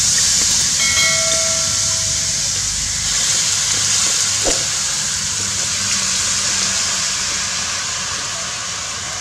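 Baby shrimp, basil and spice paste sizzling hard as they hit a hot wok. The hiss comes on suddenly and fades slowly, with a brief ring about a second in and a single knock midway.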